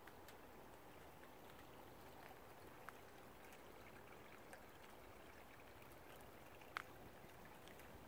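Near silence: a faint steady outdoor hiss with a few soft clicks, the sharpest one near the end.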